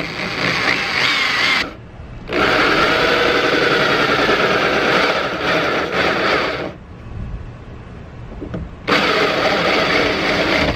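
Electric drill with a small hole saw cutting through the inner layer of a fiberglass hood, run slowly in three bursts of a few seconds with short pauses between.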